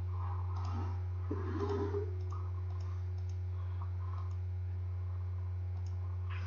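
Scattered single computer mouse clicks, a few seconds apart, over a steady low electrical hum.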